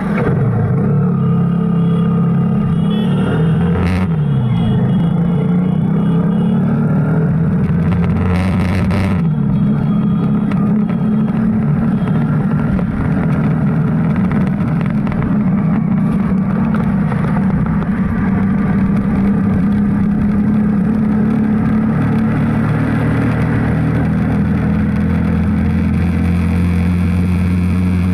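Motor vehicle under way on the road: a steady, loud engine hum and road noise whose pitch drifts slightly, with a brief click about four seconds in and a short rush of noise a few seconds later.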